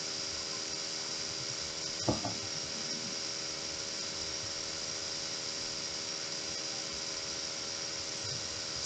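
Steady background hiss with a faint steady hum under it, and one short, louder sound about two seconds in.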